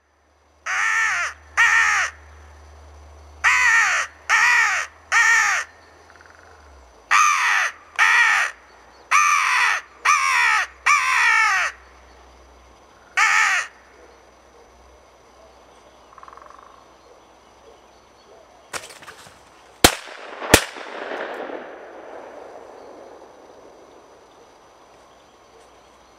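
Crow cawing: about eleven harsh caws in short runs of two to four over the first thirteen seconds. About twenty seconds in come two sharp, loud cracks under a second apart, followed by a brief rustling.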